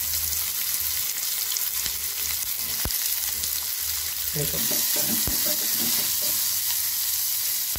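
Chopped onions sizzling in hot oil with popped mustard seeds and chana dal in a small steel kadai, a steady hiss. About halfway through a spatula starts stirring them, scraping the pan, with a couple of sharp taps.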